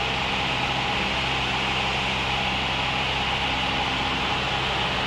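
Steady drone of a single-engine piston training aircraft's engine and propeller heard in the cockpit, with a constant hiss over a low hum.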